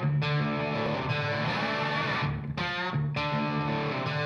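Background music led by distorted electric guitar, sustained chords with a brief break about two and a half seconds in.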